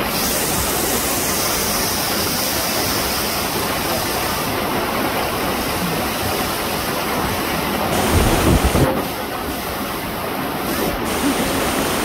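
Small waterfall splashing down a rock face: a steady rush of falling water. A brief, louder low rumble comes about two-thirds of the way through.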